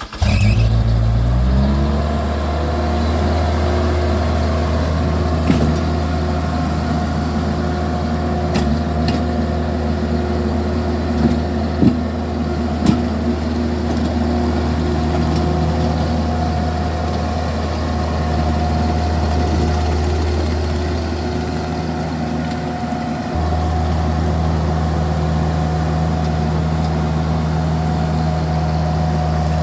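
Vermeer mini skid steer's engine revving up over the first couple of seconds, then running steadily at working speed while plowing with a snow box, its note stepping slightly about two-thirds of the way through. A few sharp knocks come early on the way, typical of the steel snow box clunking over pavement.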